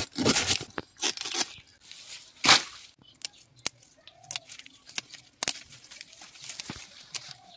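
Red amaranth stalks being cut and torn with a small blade: a few loud, rough tearing bursts in the first three seconds, then a run of short, sharp snaps as individual stems are cut.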